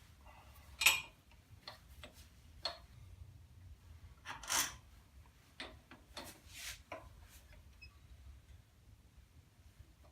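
Light scattered metal clicks and knocks from turning a drill press spindle by hand, with a sharp click about a second in and a short rattle near the middle.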